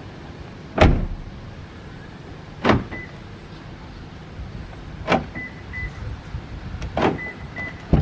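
Four sharp clunks from a Perodua car door's latch and lock as a newly fitted exterior door handle and its keyless request button are tested. After each of the last three clunks come short high beeps from the car: one, then two, then two.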